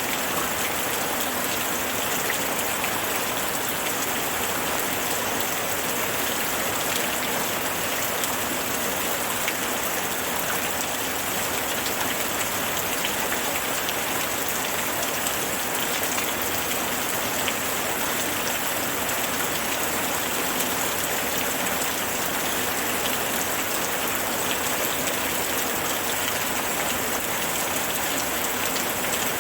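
Steady rainfall: an even hiss of rain with many small drop ticks, holding constant throughout.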